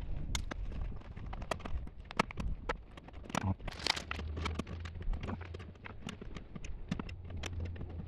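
Irregular small clicks and taps of tools and hardware being handled against the metal of an electrical service panel, over a low steady hum.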